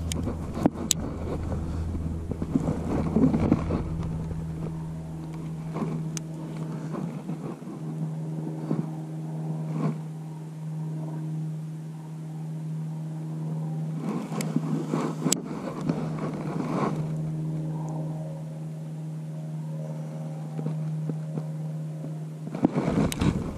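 A steady mechanical hum, like a motor running at constant speed, that stops near the end, with a few sharp clicks and brief knocks over it.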